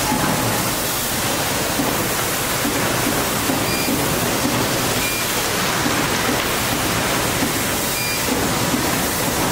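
CNC topsheet cutter standing ready with its equipment running: a loud, even hiss, with a few faint short high beeps now and then.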